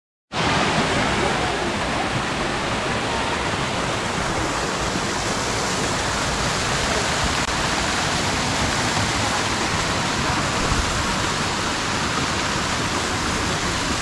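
Waterfall rushing: a steady, even roar of falling water cascading over mossy rocks into a pool in a gorge.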